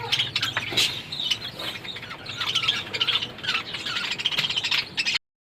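Many small cage birds chirping and calling at once, dense overlapping short calls from a crowded aviary. The sound cuts off abruptly near the end.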